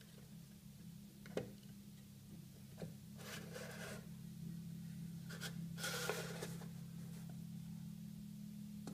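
Plastic Play-Doh Fun Factory toy being handled: two short plastic clicks, then two stretches of rubbing and scraping as the yellow lever is worked and the dough is pressed.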